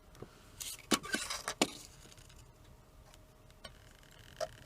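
Light clicks and taps from handling the circuit board, wires and soldering iron while a tinned power lead is soldered on. The two sharpest clicks come about a second in and about a second and a half in, with a brief hiss between them, then a few faint ticks.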